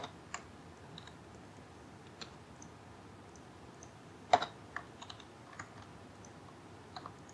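Scattered clicks of computer keyboard keys and a mouse, about eight or nine in all, with a loud click at the start and another about four seconds in, over faint steady hiss.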